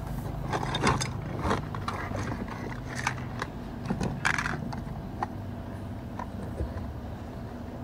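Hard plastic toy parts clicking and rattling against a cardboard box as a toy transforming fighter jet and its accessory pieces are taken out, with scattered rustles of the box. The clicks are busiest in the first five seconds, then thin out.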